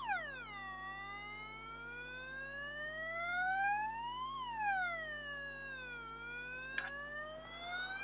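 Velleman MK113 siren sound generator kit sounding a slow electronic wail on its fire-engine setting. The pitch rises for about four seconds, falls for about two, then starts rising again. A small click about seven seconds in.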